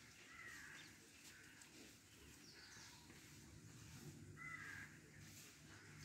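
Faint crow caws, several short calls spread through an otherwise near-quiet scene.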